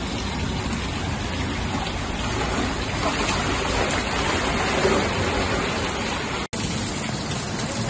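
Heavy rain pouring down, with floodwater running along the ground: a steady hiss that cuts out for an instant about six and a half seconds in.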